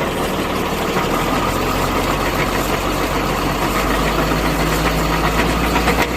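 Tata 2518 truck idling with its GB-60 gearbox in neutral, giving a steady, rapid clatter over the engine's low hum. The noise comes from stripped teeth on the second gear of the gearbox main shaft.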